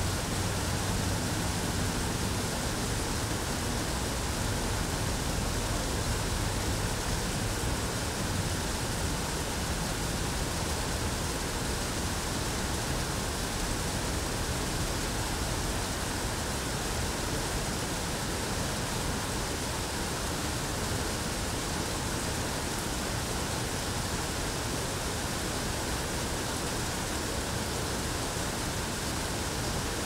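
Steady rush of falling water, an even hiss that holds without change.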